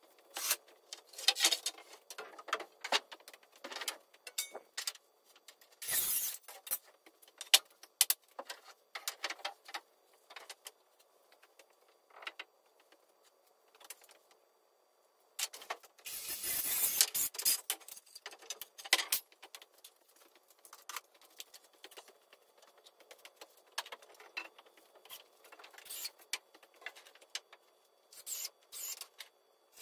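Scattered knocks, clicks and rustles of someone moving about and handling tools and timber in a workshop, with a longer rustling scrape about sixteen seconds in.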